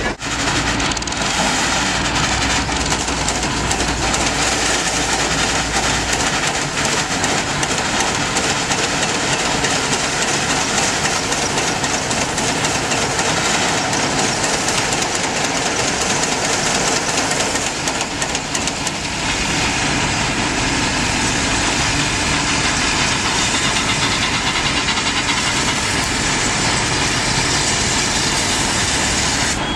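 Steady mechanical running noise of engines or machinery. A low hum drops away about six seconds in.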